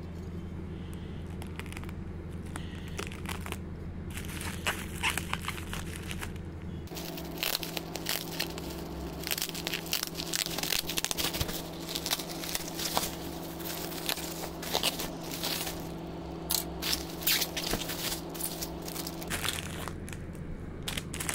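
Plastic bubble wrap crinkling and crackling as hands pull a bubble-wrapped package open. The crackles are sparse for the first few seconds, then come thick and fast.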